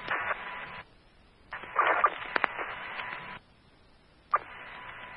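Fire department radio channel heard through a scanner: static and hiss from keyed-up transmissions with no clear words, cutting out to silence twice as the squelch closes. There is a brief garbled burst about two seconds in, and a sharp click as the channel keys up again after the second gap.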